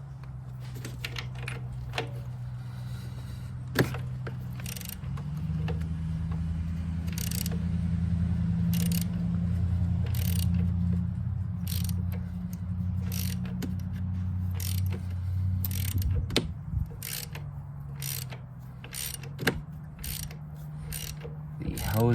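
Ratchet and 22 mm socket clicking in short, irregular strokes as the PCV valve of a Toyota 2AZ-FE engine is worked loose, over a steady low hum.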